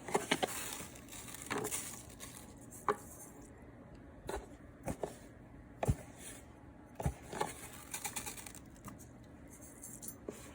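Scattered light clicks and taps of kitchen utensils and containers handled at the stove, with a soft rustle in the first couple of seconds, as salt goes into the pot of water for rice.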